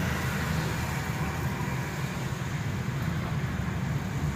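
Steady road noise heard inside a moving car's cabin: a low rumble of engine and tyres with a faint hiss, the car driving on a wet road.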